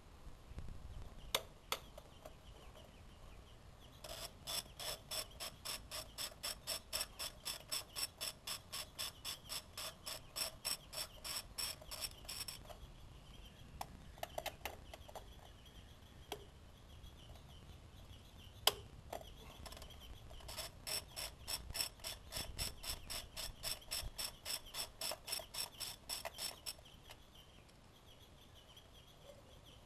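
Hand ratchet wrench on an extension, its pawl clicking rapidly and evenly, about five clicks a second, as it is swung back and forth. Two long runs of clicking with a pause between them, and a few single sharp clicks, one near the start and one in the middle.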